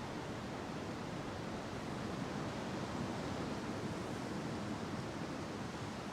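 Winter wind gusting through bare trees, a steady rushing that swells slightly near the middle, over the low hum of distant city traffic.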